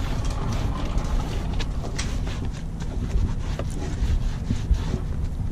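Steady low rumble of wind on the microphone, with a few faint light clicks or rustles.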